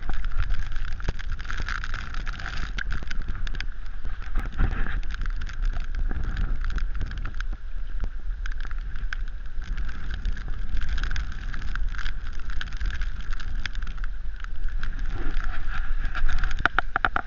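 River current rushing and splashing right at the microphone, with many small irregular ticks of water, over a steady low rumble of wind buffeting the microphone.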